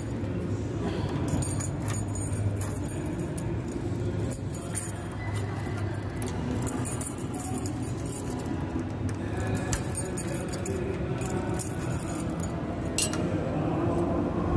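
Light metallic jingling and clinking with scattered clicks, over rubbing and handling noise on the microphone of a phone carried while walking.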